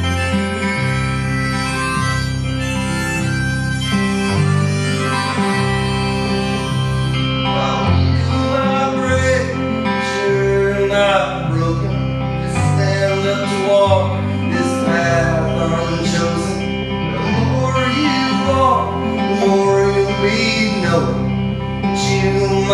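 Live solo acoustic music: strummed acoustic guitar with harmonica. The harmonica holds long chords at first, then breaks into shorter, bending phrases over the changing guitar chords.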